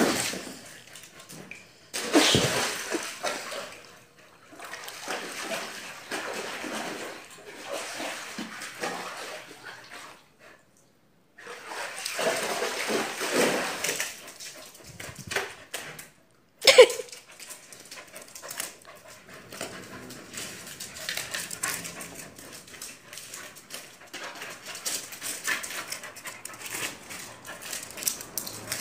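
Siberian husky whining and vocalizing in several stretches, with one short, sharp bark about two-thirds of the way through.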